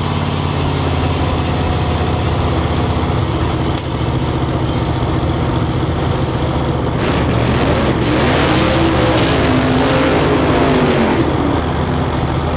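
Drag-race Corvette's engine running loud and steady at the starting line during its burnout. Its pitch rises and falls about eight seconds in, over a rushing hiss.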